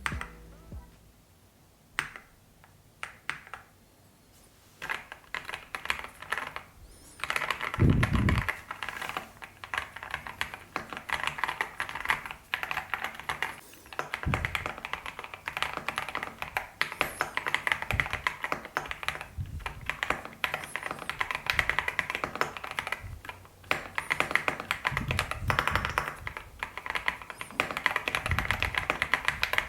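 Typing on an EPOMAKER TH80 Pro V2 mechanical keyboard with Mulan switches: a few single keystrokes, then steady fast typing from about five seconds in, with an occasional deeper thud among the clicks.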